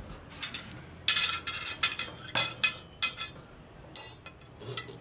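Metal cutlery and dishes clinking: several sharp, short clinks about a second apart as a meal is set out and served.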